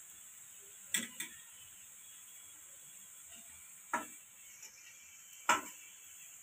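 Garlic and cumin frying in oil in an iron kadhai: a faint steady sizzle, with a metal spatula clinking against the pan four times.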